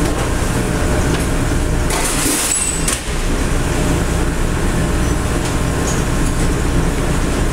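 Steady low drone of commercial kitchen ventilation, with a brief hiss about two seconds in.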